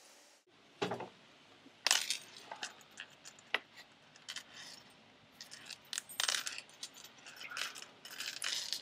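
Irregular light metallic clinks, knocks and jingling from a metal replica sword and its hilt chain being handled, with sharper knocks about 1, 2, 3.5 and 6 seconds in.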